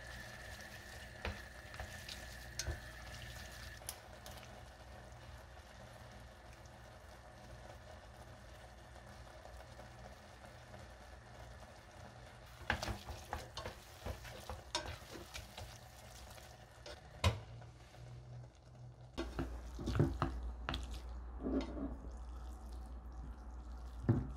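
Wooden chopsticks stirring noodles in a stainless steel pot, clicking and scraping against the metal now and then, over a low steady sizzle from the pot on the gas stove. A burst of handling sounds comes later, and a single sharp knock near the end.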